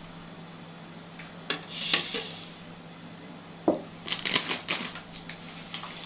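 Kitchenware being handled on a counter: a few sharp clicks and clinks, a short rustling swish about two seconds in, then a quick run of clicks and knocks about four to five seconds in.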